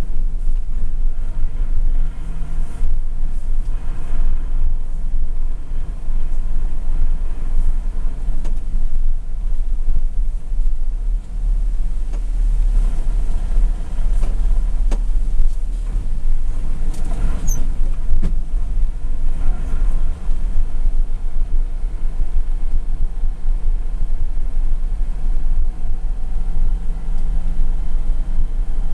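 Mercedes-Benz Unimog's engine and drivetrain heard from inside the cab while driving, a steady deep rumble.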